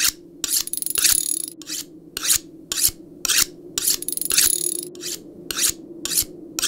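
A blade being sharpened on steel: quick rasping strokes about two a second. Every few strokes comes a longer drawn stroke with a high metallic ring, about a second in and again past the middle.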